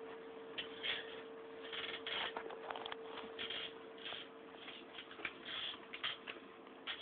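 Rustling and scuffing handling noise as a handheld camera is moved about, in irregular bursts, over a steady faint hum.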